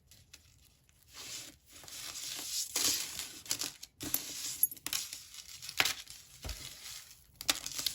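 Rustling handling noise with a few sharp clicks as a tangled metal chain necklace is handled and picked at, starting about a second in.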